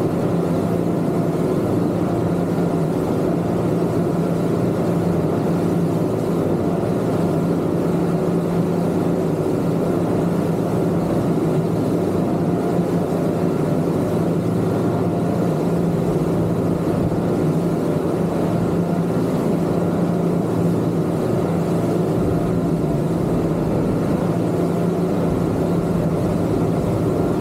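Twin Yamaha 250 outboard motors on a Kingfisher 3025 GFX boat running underway at a steady pace: a constant, even engine drone with no change in speed.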